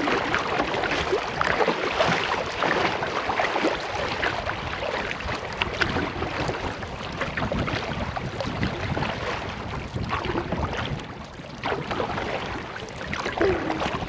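Wooden canoe paddles dipping and pulling through river water in irregular small splashes, over the rush of water along the canoe hull, with some wind on the microphone.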